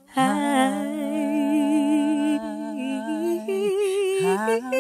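Unaccompanied gospel vocal group singing a long held chord, several voices in close harmony with vibrato in the upper parts. The lowest voice breaks off a little before the end and comes back in.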